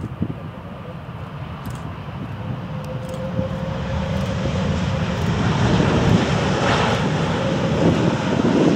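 Airbus A330-200 airliner landing: its jet engines run as it touches down and rolls along the runway, the sound growing steadily louder as it nears, with a faint steady whine.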